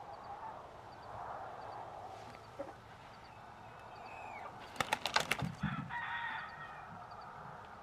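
Chickens calling, a squawk and clucking about halfway through, mixed with a quick flurry of sharp clicks. A faint steady background is under them.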